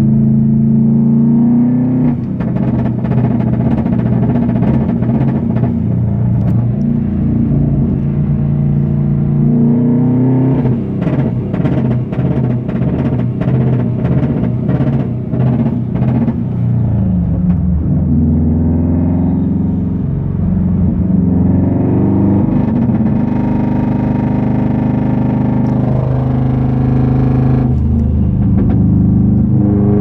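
2011 Subaru WRX's turbocharged flat-four engine pulling under load, revs rising several times. Through the middle it stutters with a burst of rapid, irregular pops and stops climbing: a heavy misfire in boost, which the owner traced to a boost leak at the front-mount intercooler's end-tank coupling.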